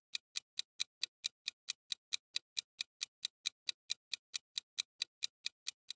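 Countdown-timer sound effect: a clock ticking quickly and evenly, about four to five ticks a second.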